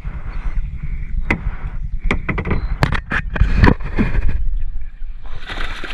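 Kayak paddles and hulls in the water: a run of knocks and splashes over a steady low rumble.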